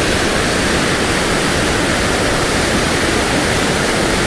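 Steady rush of fast-flowing water, loud and unbroken.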